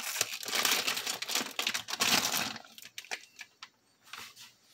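Plastic vegetable bag crinkling as its carrots and baby red potatoes are emptied into the slow cooker. The crinkling stops about two and a half seconds in, leaving a few light clicks.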